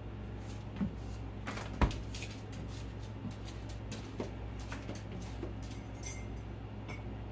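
Kitchen handling sounds: a few knocks and light clinks of dishes and a cupboard, the loudest knock about two seconds in, over a steady low hum.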